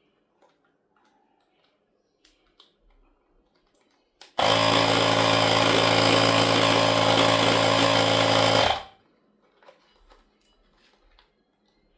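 Small portable electric air pump (compressor) running for about four seconds, a steady motor-and-piston buzz with hiss, starting and stopping abruptly, after a few faint clicks.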